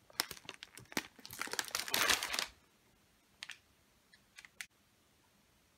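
Thin plastic bag of fresh moringa leaves crinkling and rustling as it is handled, for about two and a half seconds, followed by a few light clicks.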